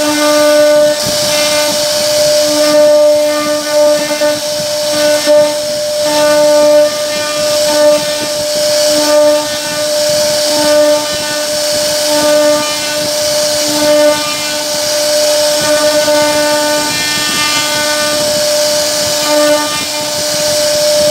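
CNC router spindle running and carving a wooden door panel: a steady high whine over the hiss of the bit cutting wood, with the whine repeatedly growing stronger and weaker.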